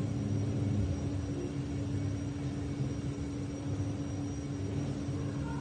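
Steady low background rumble with a constant low hum, even throughout.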